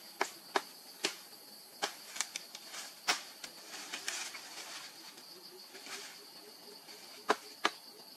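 Machete strikes chopping through a sapling at its base: a run of sharp chops in the first three seconds and two more in quick succession near the end. A steady high insect buzz runs underneath.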